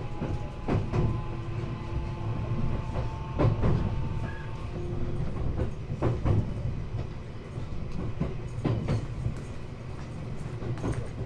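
Running sound inside a 521 series electric multiple unit (motor car KuMoHa 521-6) under way: a steady low rumble with the wheels clicking over rail joints in pairs about every two and a half seconds. A thin motor whine runs at first and stops about four seconds in.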